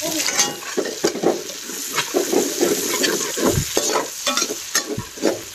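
Chopped onions sizzling in hot oil in a metal wok, stirred with a long metal spatula that scrapes and clicks against the pan many times over the steady sizzle.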